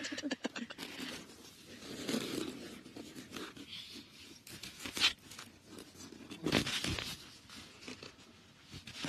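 Rustling and crinkling of sleeping bags and blankets as people shift about on camp cots. A quick run of small clicks comes in the first second, and a sharper knock about five seconds in.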